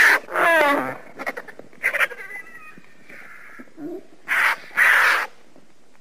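Cinereous vulture calling: a short rasp and a falling, pitched call in the first second, a brief call about two seconds in, then two louder hissing calls close together about four and a half seconds in.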